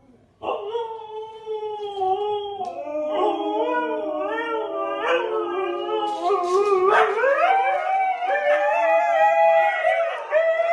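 Two huskies howling together in long, wavering howls that start about half a second in, their voices overlapping.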